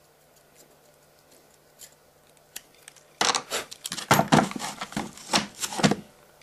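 Hand work on a freshly 3D-printed plastic gear as its hole is test-fitted: a quick run of loud scraping and clicking strokes that starts about halfway through and stops about three seconds later.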